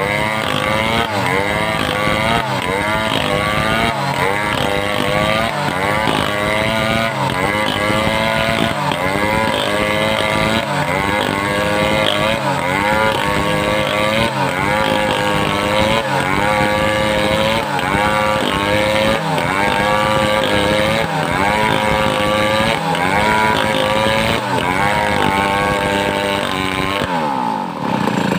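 Homemade two-stroke chainsaw cutting timber at high revs, its engine note dipping under load and picking up again about once a second. Near the end the pitch falls away briefly.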